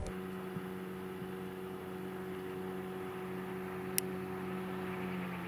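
Outboard motor on an inflatable boat running under way at a steady pitch, an even hum. A single sharp click about four seconds in.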